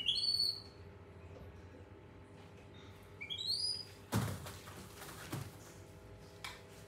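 Baby monkey giving two short, high, rising squeals about three seconds apart, followed by a thump and a few fainter knocks.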